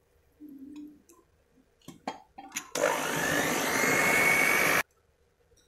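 Electric hand mixer whisking eggs and sugar in a glass bowl for sponge-cake batter. Its motor runs for about two seconds with a whine that rises in pitch as it speeds up, then cuts off suddenly. A few short clicks come just before it starts.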